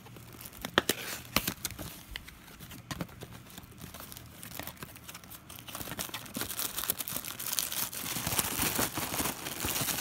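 Cardboard box of M150 firecrackers being opened by hand: a few scattered taps and clicks, then denser crinkling and tearing of the packaging from about six seconds in.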